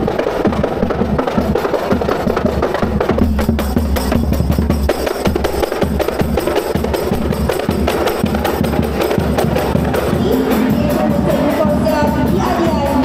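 Kompang frame drums and a large bass drum beaten together in a fast, dense, steady rhythm, with voices coming in near the end.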